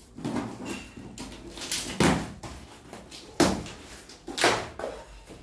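Cardboard shipping box being opened by hand: packing tape tearing and the cardboard flaps rustling open, in a series of about five sharp rips and crinkles.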